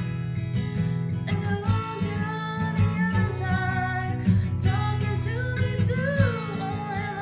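Acoustic guitar strummed steadily in chords, with a woman's voice singing a slow melody over it from about a second in.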